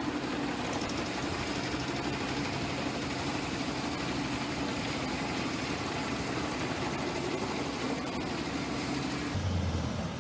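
Heavy machine's engine running steadily with a dense mechanical hum. The sound changes abruptly near the end.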